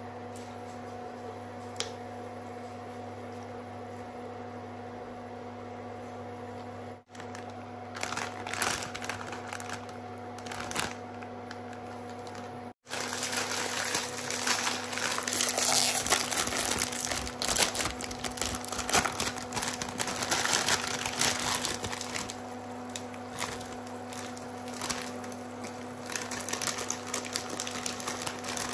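Crinkling and crackling handling noise over a steady electrical hum, sparse at first and then denser and louder after a brief dropout about 13 seconds in.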